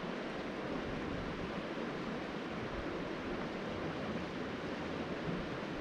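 Steady rush of flowing creek water, an even hiss without breaks.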